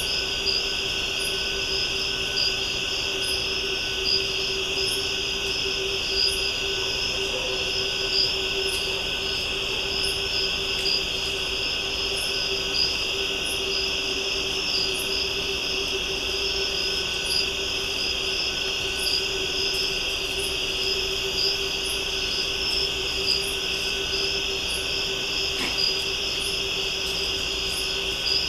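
Night-time insect chorus of crickets and katydids: steady, dense trilling, with a very high chirp repeating about once a second and a low steady hum beneath.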